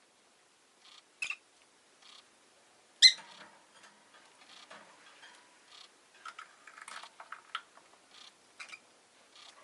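Rosy-faced lovebird chirping: scattered short, shrill chirps, the loudest about three seconds in, with a quick run of chirps in the second half.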